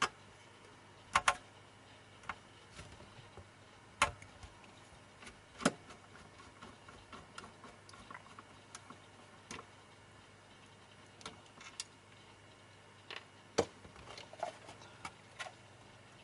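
Screwdriver backing out small screws from the back of a mini PC case: scattered light clicks and ticks, with a few sharper taps about a second in, around four and five and a half seconds in, and near thirteen and a half seconds in.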